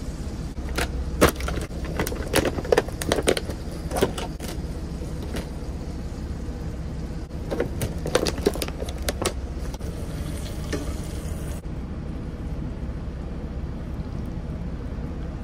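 Plastic food packaging crackling and clicking as it is handled, in two spells of a few seconds each, about a second in and again around eight seconds in. Under it runs the steady low hum of the truck's idling engine.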